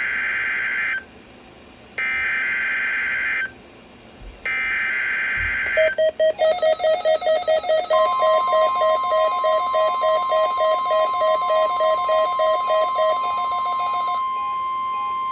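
NOAA Weather Radio Emergency Alert System SAME header: three raspy digital data bursts of about a second each, the first already under way. Then, about six seconds in, a fast pulsing beep starts, and about eight seconds in the steady 1050 Hz weather radio warning alarm tone joins it and holds, sent as part of the weekly test.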